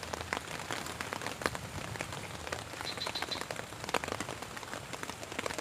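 Rain falling steadily, with many individual drops striking at irregular moments close by.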